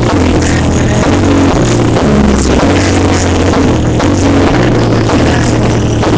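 Loud electronic hip-hop music with a heavy bass line moving in steady steps, recorded through a laptop's built-in microphone.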